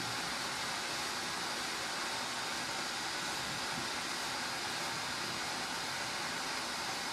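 Glassworking torch flame hissing steadily as a glass rod is heated in it.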